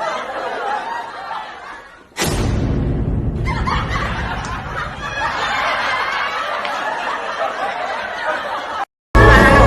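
Snickering laughter. About two seconds in, a sudden, much louder sound with a deep low rumble starts and carries on. It stops at a brief cut near the end, and music begins.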